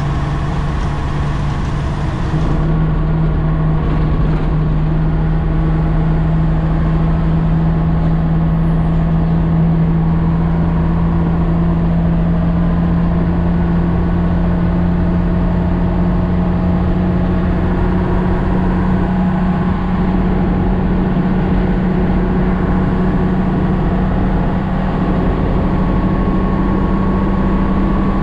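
Nissan CK31L truck's diesel engine running steadily on the road, heard from inside the cab, its drone rising slowly in pitch.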